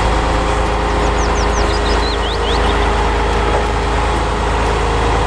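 Heavy wrecker tow truck's diesel engine running steadily while its boom crane is worked. A bird chirps a quick run of high, falling notes about a second in.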